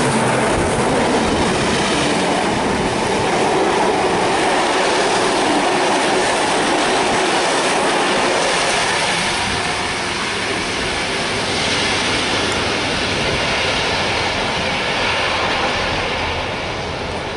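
NSWGR 36 class steam locomotive 3642 and its train of heritage passenger carriages passing close by, a loud, steady rush of wheel and rail noise as the carriages roll past. The noise eases a little over the last several seconds as the train moves away.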